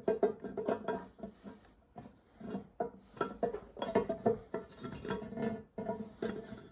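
Small steel transmission parts clinking and tapping together as the bearings are fitted into a T9 gearbox countershaft by hand: a string of irregular light metallic knocks, some with a short ring.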